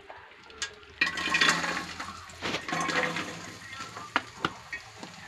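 Chopped coconut pieces dropped into hot ghee in an aluminium pot, sizzling: a hiss that starts suddenly about a second in, with scattered clicks of the pieces against the pot.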